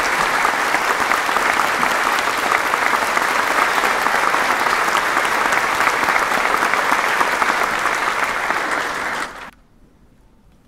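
Concert-hall audience applauding steadily, the clapping stopping abruptly about nine and a half seconds in and leaving the hall hushed.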